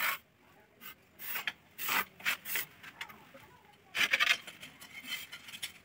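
A series of short, gritty scrapes and rubs as ceramic floor tiles are slid and pressed by hand on a sand-cement mortar bed; the loudest comes about four seconds in.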